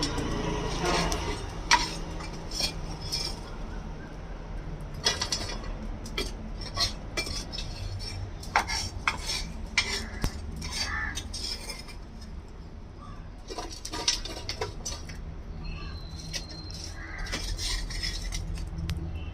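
Metal pots, lid and utensils clinking and knocking at irregular intervals over a low steady hum, as the biryani pot is set up for dum cooking.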